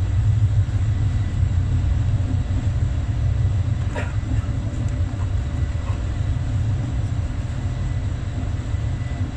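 Steady low rumble of a passenger train rolling slowly through a station, heard from inside the carriage, with a single click about four seconds in.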